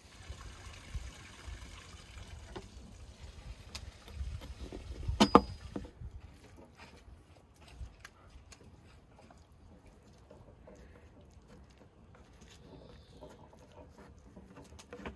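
Hands rolling grape leaves around minced-meat filling for dolma: soft rustling and handling noises with small scattered ticks, and one sharp knock about five seconds in.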